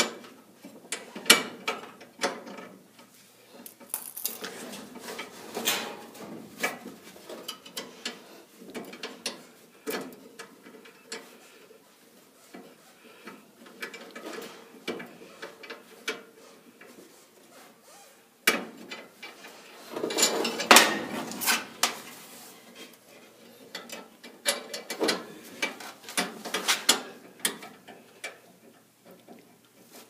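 Hands working small metal parts inside a furnace's burner compartment, threading a new thermocouple's sleeve into the pilot holder: irregular clicks, taps and scrapes, with the loudest cluster about two-thirds of the way through.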